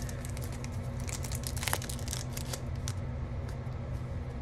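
Foil wrapper of a Pokémon card booster pack crinkling and crackling in the hands as it is opened and the cards are pulled out, with irregular sharp crackles that are thickest about a second in. A steady low hum runs underneath.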